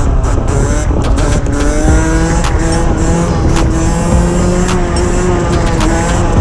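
Derbi Senda 50cc two-stroke single with an unrestricted CDI and an aftermarket Enox exhaust, running at high revs on the back wheel. The engine pitch climbs about one and a half seconds in, then holds high and steady. Heavy wind rush on the microphone runs under it.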